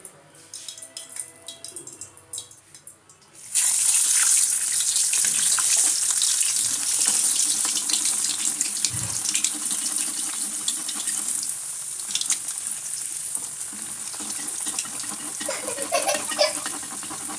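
Stuffed flour-dough patties deep-frying in hot oil: after a few light clinks, the oil breaks into loud sizzling about three and a half seconds in as the patties go in, and keeps sizzling steadily.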